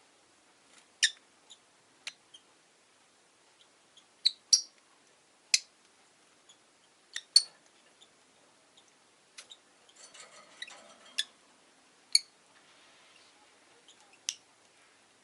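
Rosy-faced lovebirds giving short, sharp, high chirps at irregular intervals, about ten in all, with a run of softer clicks and chatter a little past the middle.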